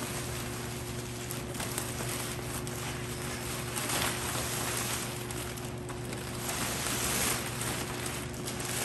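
Large clear plastic mattress bag rustling and crinkling as it is pulled down over an upright mattress, swelling and easing several times, over a steady low hum.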